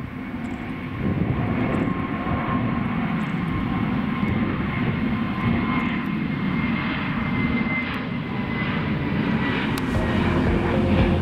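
Airbus A320neo jet airliner at take-off thrust as it lifts off and climbs away: its Pratt & Whitney geared-turbofan engines make a steady, loud jet rumble and hiss, with a faint whine that sags slightly in pitch as the aircraft recedes.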